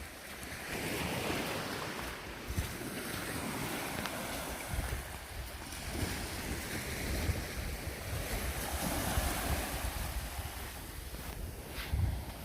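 Sea waves washing onto a beach in repeated swells, with wind buffeting the microphone and a few low thumps near the end.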